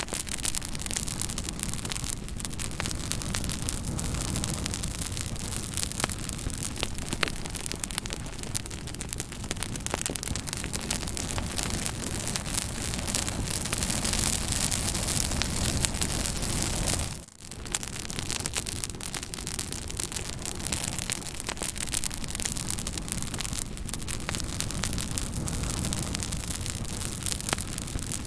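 Fire crackling: a steady hissing rush scattered with many sharp crackles and pops, with a brief dip in level about two-thirds of the way through.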